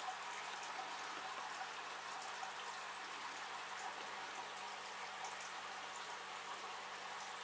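Steady faint hiss of room tone, with a sharp click right at the start and faint scattered ticks.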